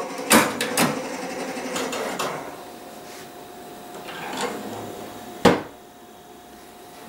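Clicks and knocks of handling a Müntz Mammuth cabinet gramophone's turntable as the record is stopped, then one sharp wooden knock about five and a half seconds in as the lid over the turntable is shut.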